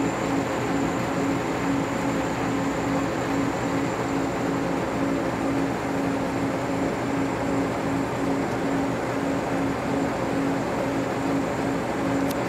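Mobile crane's diesel engine running steadily, a continuous droning hum with an even pulsing beat in it.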